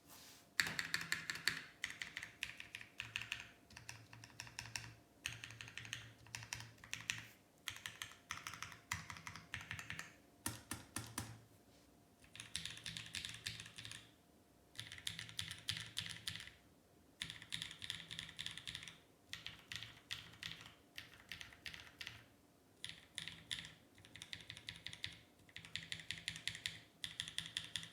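Mechanical keyboard typing: a Keycult No. 2 with lubed Holy Panda tactile switches on SPRiT springs under GMK keycaps, keys clacking in quick runs of about a second or two with short pauses between, like bursts of words.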